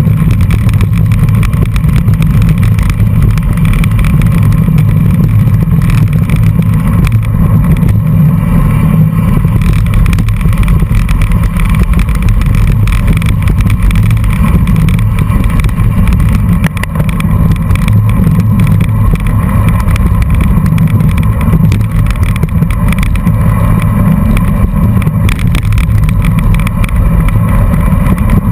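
Steady wind rumble buffeting the microphone of a camera on a moving racing bicycle, mixed with the crunch and rumble of tyres rolling over a dirt road.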